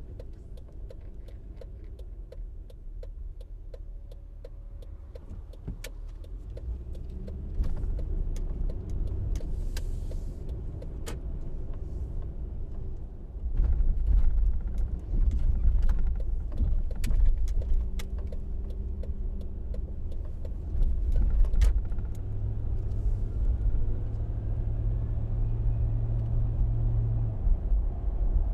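SUV driving on a local street: a low engine and road rumble that grows louder about a quarter of the way in and again near the middle, with a steady low hum late on. Many small sharp clicks and rattles are scattered over it.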